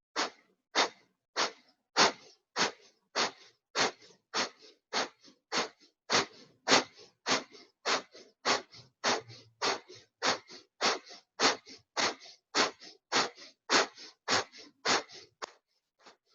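Kapalabhati breathing: rhythmic, forceful exhalations pushed out through the nose by contracting the navel toward the spine, a little under two a second, with silent inhalations between. The bursts become fainter near the end.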